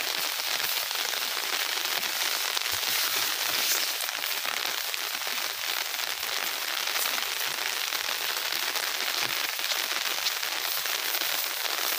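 Steady rain falling on grass and leaves, a continuous even hiss, with a few faint knocks.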